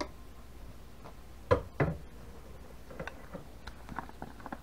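Two dull knocks close together about a second and a half in, then a few faint light clicks, as a whisk, plastic measuring spoons and a colorant jar are handled and set down on a table.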